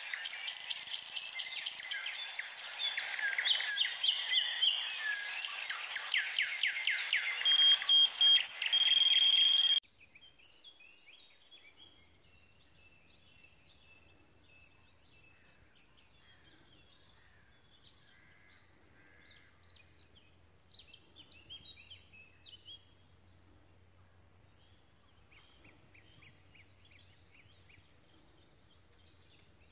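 A loud, dense chorus of many songbirds chirping and singing, with a short run of steady electronic beeps near its end. About ten seconds in it cuts off suddenly to faint, scattered distant birdsong over a low steady hum.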